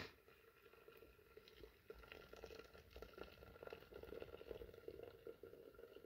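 Steaming hot water poured from a kettle into a metal teapot, a faint steady splashing of liquid that grows a little louder over the first few seconds. A short knock right at the start.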